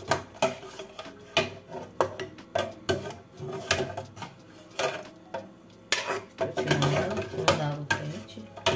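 A metal ladle clinking and scraping against aluminium pots as boiled tripe is scooped out of the water into a pan, in irregular knocks and clatters.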